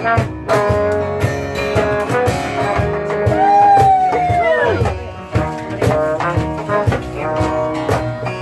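Live band music: rhythmic strummed guitar with other instruments, and a single held note about halfway through that slides down in pitch as it ends.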